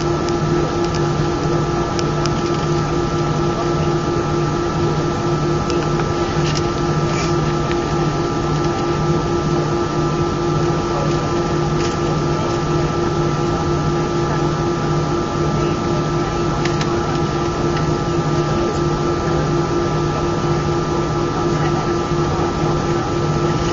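Steady cabin drone of an Airbus A319 standing on the ground with its jet engines idling. A low hum pulses slowly and evenly, and a few steady whining tones sit above it.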